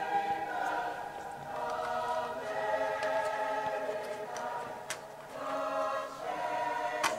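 Background music: a choir singing long held chords. A couple of sharp clicks sound in the middle and near the end.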